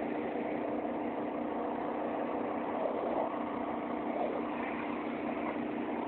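Pressure washer's engine running steadily at constant speed, a continuous hum with no change in pitch.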